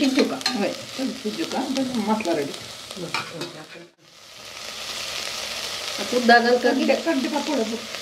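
A hand mixing chopped raw onions and sliced starfruit in a metal pressure cooker, a moist squishing and rustling. About halfway through the sound cuts out briefly, then comes back as a steady hiss with more mixing sounds near the end.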